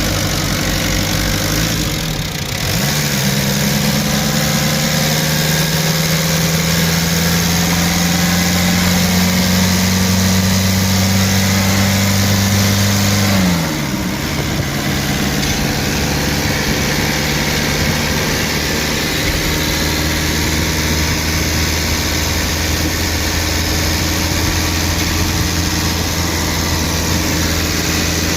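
Kia 2.7 J2 four-cylinder diesel engine idling, raised to a steady higher speed a couple of seconds in, held there for about ten seconds, then dropped back to idle. It makes the weird noise of an engine whose oil is contaminated with diesel.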